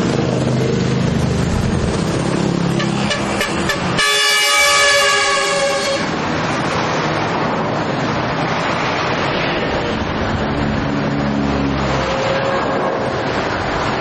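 Concrete mixer trucks' engines running, with truck horns sounding; one loud horn blast comes about four seconds in and holds for about two seconds.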